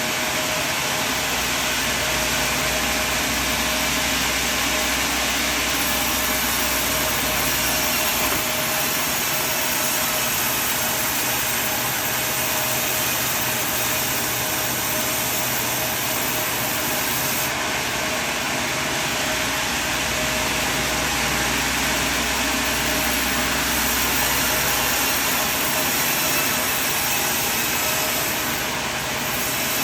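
Sawmill machinery running with a steady mechanical noise and a constant whine. A low hum comes in twice for several seconds, about a second in and again near the middle.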